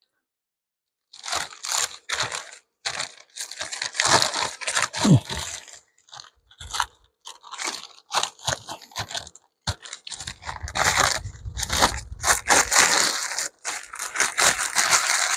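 Thin plastic sheeting crinkling and rustling in irregular bursts as it is handled and spread over the top bars of a beehive's frames, starting about a second in.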